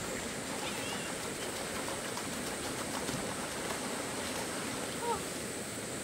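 Shallow rocky stream flowing with a steady rushing hiss, with light splashing of water being waded through. A brief, short pitched cry about five seconds in.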